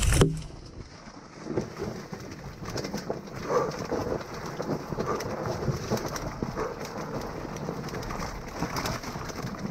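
Dirt bike coasting down a loose rocky trail. The loud engine note cuts away right at the start, then stones crunch and clatter under the tyres and the bike rattles over them.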